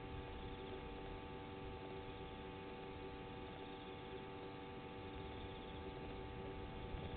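Steady electrical hum with several fixed tones over an even hiss, unchanging throughout.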